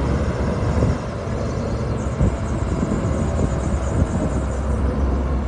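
Bulldozer engine running with a steady low rumble, with irregular knocks from the machine working through rock and dirt.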